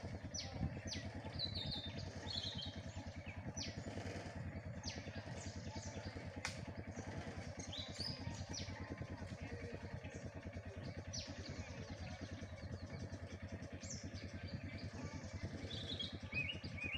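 An engine idling with a steady, fast low pulse, while birds chirp repeatedly over it.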